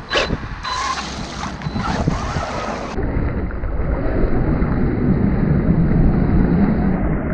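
Arrma Senton BLX radio-controlled short-course truck, running a Kraton 6S brushless motor and ESC, driven fast through deep flood water: a steady rushing splash of its tyres churning and spraying water, with wind buffeting the microphone.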